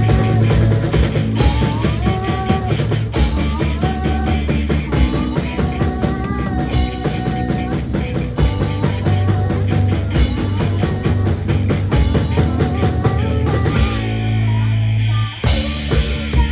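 Live rock band playing: a female lead singer over a drum kit, electric guitars and keyboard. About fourteen seconds in, the drums and cymbals stop for a second and a half of held notes, then the full band comes back in.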